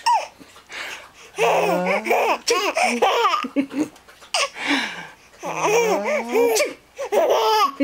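A baby of almost six months laughing out loud in about four bursts.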